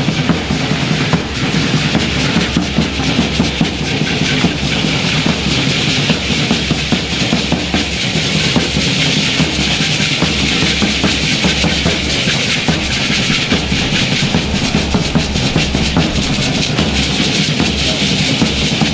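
Live percussion for a traditional Mexican danza: drums beat a steady rhythm under the dense, continuous shaking of many handheld rattles carried by the dancers.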